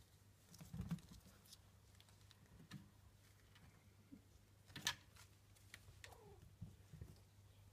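Near silence broken by faint soft knocks and patters of British shorthair kittens playing and scampering about on bedding, the clearest knock about five seconds in.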